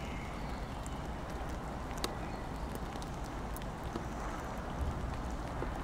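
Steady rain with scattered sharp drips tapping irregularly, over a low rumble.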